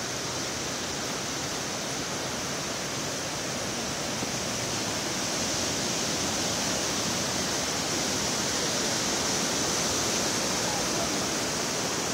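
Steady rushing of ocean surf, with no distinct events, swelling a little about halfway through.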